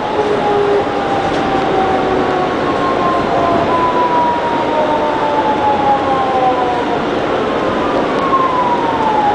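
R160B subway car's traction motors whining, several tones gliding slowly down in pitch as the train brakes into a station, over steady wheel-on-rail noise.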